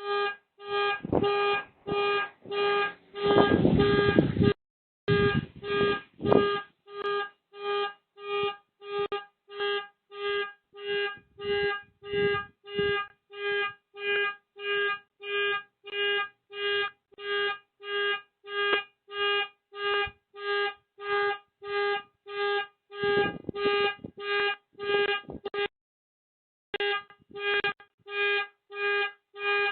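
Car alarm sounding the car's horn over and over in a steady rhythm, about three honks every two seconds, heard thinly through a Ring doorbell camera's microphone. A louder rushing noise comes in under it about three seconds in and again near the end.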